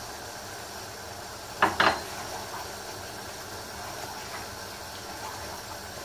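Wooden spoon stirring a simmering ground-meat and tomato sauce in a frying pan over a steady hiss, with two quick knocks about a second and a half in.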